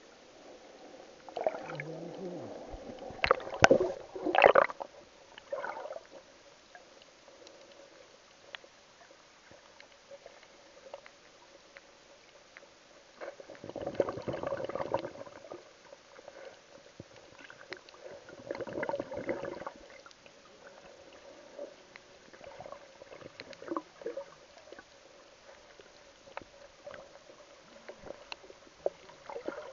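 Water heard from a camera held underwater: muffled sloshing and gurgling that swells in a few bouts, with a couple of sharp knocks in the first bout and scattered small clicks, over a faint steady hum.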